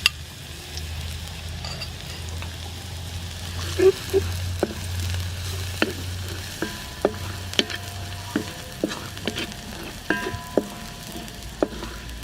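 Garlic sizzling in hot soybean oil, with a utensil clicking and scraping against the pan as it is stirred. The clicks come more often from about four seconds in.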